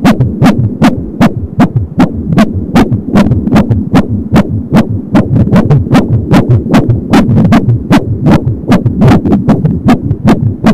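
Fetal heartbeat at 22 weeks picked up by an Angelsound handheld fetal doppler: rapid, even whooshing pulses through its speaker at about three a second, which is 170 beats a minute.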